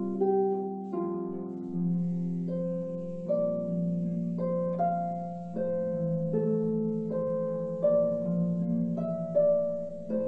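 Solo harp playing a slow tune: plucked notes, a new one roughly every second, each left ringing over held low bass notes.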